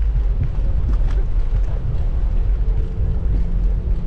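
Wind buffeting the microphone of a camera carried on a moving bicycle: a loud, uneven low rumble with a few faint clicks above it.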